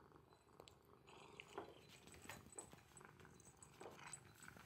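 Domestic cat purring faintly while it eats dry kibble from a bowl, with a few small crunching clicks.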